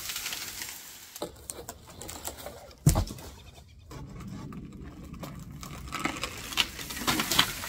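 Pole saw working at a dead tree branch overhead, with repeated short strokes through the second half. A single heavy thump sounds about three seconds in.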